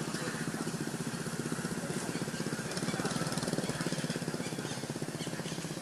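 A small engine running steadily off-screen, a fast, even chugging beat that is a little louder past the middle.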